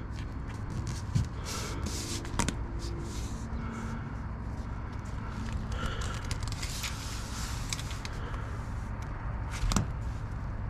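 Handling noise of adhesive foam tape being pressed into place: scattered crackling and rustling with a few sharp taps, over a low steady rumble.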